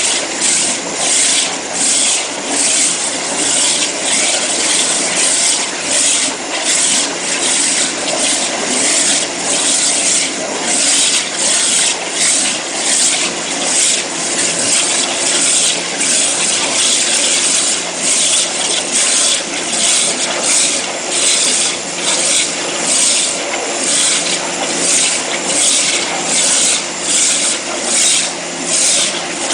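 Abrasive waterjet cutting head spraying a high-pressure jet through the workpiece: a loud, steady hissing rush that pulses rhythmically in brightness.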